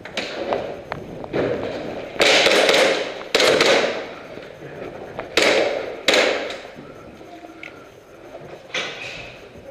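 Airsoft gunfire: loud, sharp bursts go off in close quarters, four big ones between about two and six and a half seconds in, with fainter single cracks around them.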